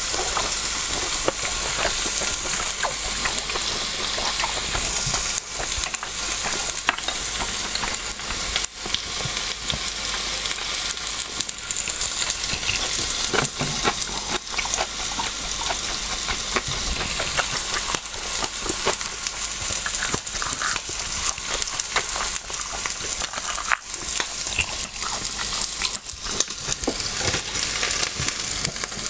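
Meat sizzling on a Korean BBQ grill plate over a portable gas burner: a steady frying hiss with constant small crackles and pops.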